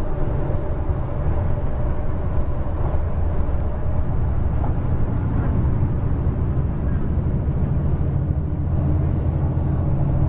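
Inside a bus at highway speed: steady low rumble of the engine and tyre and road noise.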